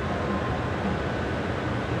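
Steady low rumble of a large container ship passing close, with a faint steady hum over an even rush of noise.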